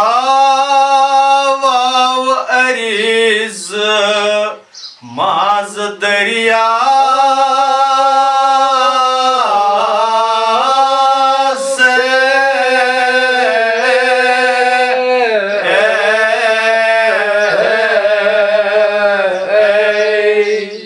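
A man singing a devotional recitation unaccompanied, holding long, slightly wavering notes, with a short pause for breath about five seconds in.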